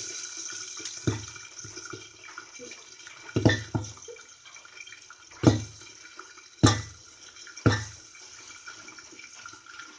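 Dried green peas deep-frying in hot oil under a steel lid: a steady sizzle with irregular sharp pops as the peas burst, a handful of them loud. The bursting comes from moisture still left inside the peas.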